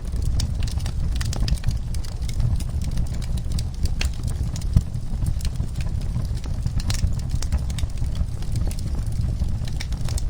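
Wood fire crackling: irregular sharp pops and snaps over a steady low rumble of the flames, with one louder pop a little before halfway.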